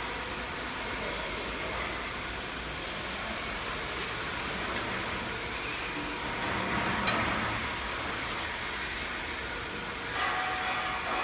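Corrugated board slitter-scorer running steadily with thin disc knives, a continuous mechanical rumble and hiss. A sharp click comes about seven seconds in, and the running noise rises near the end.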